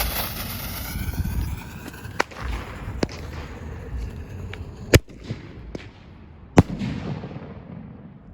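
Small consumer ground firework (a Zombie Minion) going off: a loud hissing spray that dies down toward the end, broken by several sharp pops, the loudest about five and six and a half seconds in.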